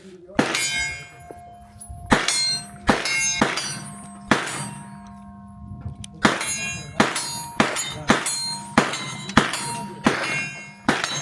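Series of about a dozen gunshots from a freshly reloaded handgun, fired at an uneven pace. Each shot is a sharp crack with a metallic, clanging ring after it.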